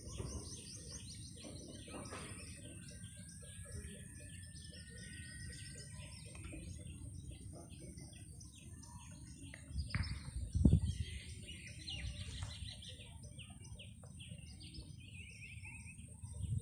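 Many birds chirping and calling from the trees: a dense run of short repeated chirps with a few quick trills. A loud low thump comes about ten to eleven seconds in, over a steady high hiss.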